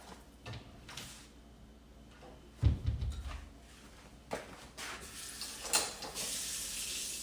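Kitchen handling sounds while preparing pancakes: scattered knocks and clicks, a heavy thump about three seconds in, then a hissing rush of about a second near the end.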